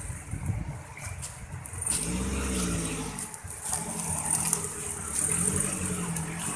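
Off-road 4x4's engine revving as it drives close past, its pitch rising and falling in several swells.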